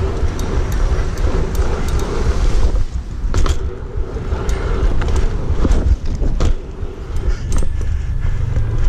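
Riding noise from a BMX bike on city pavement: a heavy, gusty rumble of wind and tyres on the microphone, with scattered sharp clicks and rattles from the bike over bumps.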